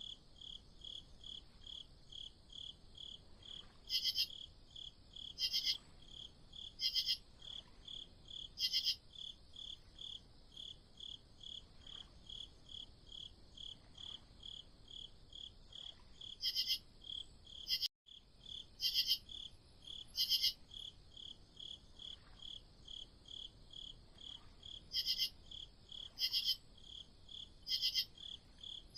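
Crickets chirping in a steady pulse, about three chirps a second. Louder, higher buzzing chirps cut in every second or two. The sound drops out briefly a little past halfway.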